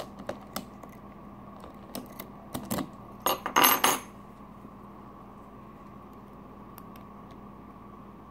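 Small metal clicks and taps, then a brief metallic rattle about three and a half seconds in, from a key and lock-picking tools being handled at a Medeco camlock. After that only a faint steady hum remains.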